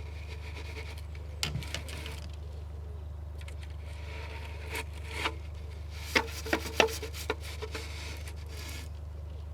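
Extended bottle brush scraping and knocking inside a boat stove's chimney flue, in a few short scrapes and knocks over a steady low hum. The flue is heavily sooted after about seven months unswept.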